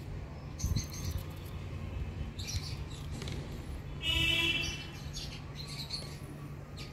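Birds chirping in short, scattered calls, with one louder, longer call about four seconds in, over a steady low hum.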